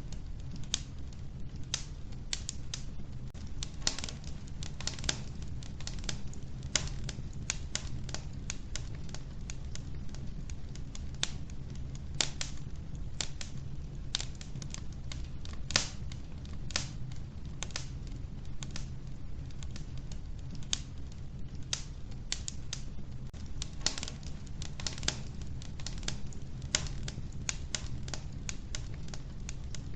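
Wood fire burning in a wood-burning stove: a steady low rumble of flame with irregular sharp crackles and pops from the burning logs, several of them louder than the rest.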